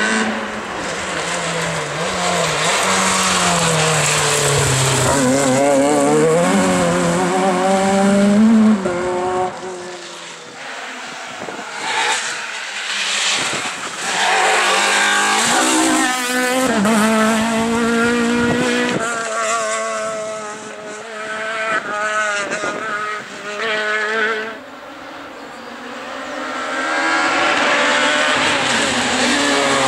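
Rally cars at full attack on a tarmac special stage, their engines revving hard up through the gears. The engine note drops and rises again many times as the drivers lift, brake and downshift for corners. Near the end another car's engine grows louder as it comes up the road.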